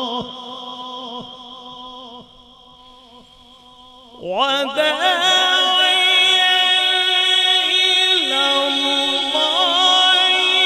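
A male qari's melodic Quran recitation (tilawat) into a microphone. A long held note fades away over the first four seconds. Then a new phrase swells in with a rising pitch and is held long with wavering ornaments, stepping down to a lower note about eight seconds in.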